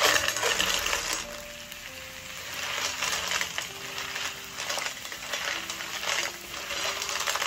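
Boiled whelks in their shells poured into a hot steel pan of garlic butter, clattering in loudest at the start, then stirred with two wooden spatulas: shells clacking against each other and the pan over a frying sizzle.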